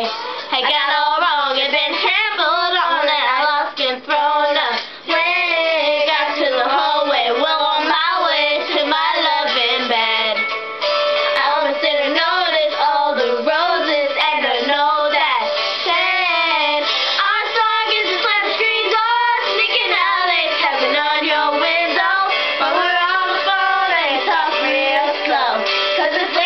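Girls singing along with a recorded pop song and its backing music, held sung lines over a steady accompaniment.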